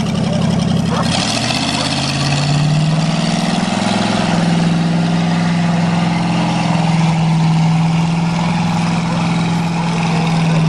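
Wheel loader's swapped-in Chevrolet 305 V8 petrol engine running as the loader drives off. The engine note rises about a second in and then holds steady.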